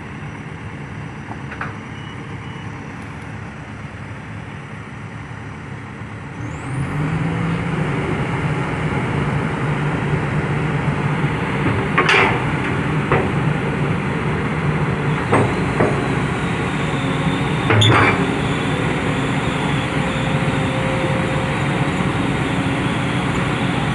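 Heavy diesel machinery engine running, picking up to a higher, louder steady speed about six and a half seconds in, with several sharp knocks in the second half.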